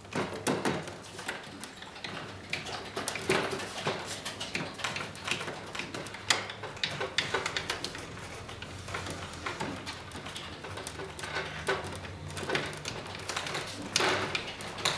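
Hands fitting an electric motor and its wires into the nose of a foam RC plane: irregular clicks, taps and scrapes of plastic and foam throughout, over a faint low hum.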